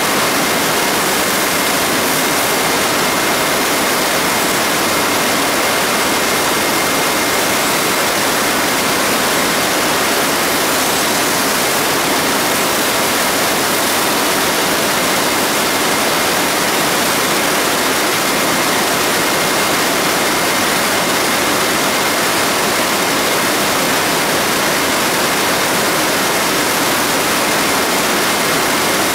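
Steady, unbroken machine noise of a textile weaving shed, its looms and humidification spray nozzles merging into one even noise with no distinct beats, plus a faint high steady tone.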